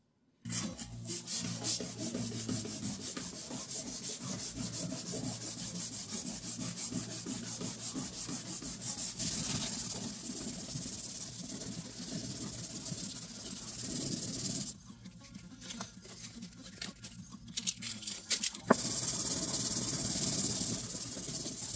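A rag rubbing back and forth over the wooden top of an old radio cabinet in quick, repeated strokes, wiping off varnish softened by paint stripper. The rubbing goes quieter about two-thirds of the way in, and a steady hiss fills the last few seconds.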